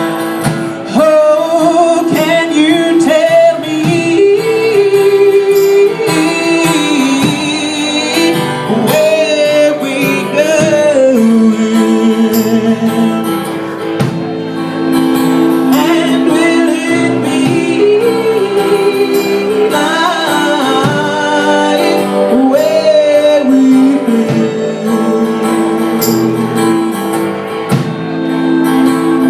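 Live band playing a song, a woman singing over plucked guitar accompaniment.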